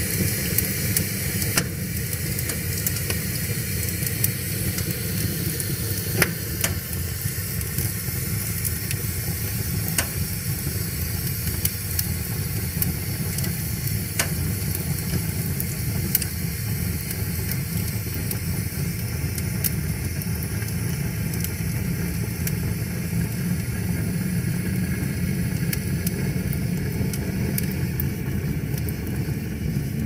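Split-log wood fire burning in a metal fire bowl: a steady low rumble of flames with scattered sharp crackles and pops, a few louder ones about 6 and 10 seconds in.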